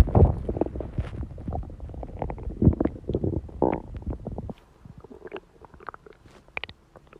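Stomachs growling: dense, irregular gurgling rumbles that drop off abruptly about four and a half seconds in, leaving only faint scattered gurgles and clicks.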